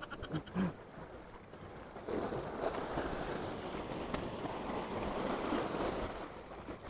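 Sea water washing over a rocky, pebbly shore, a hiss that swells about two seconds in and fades near the end.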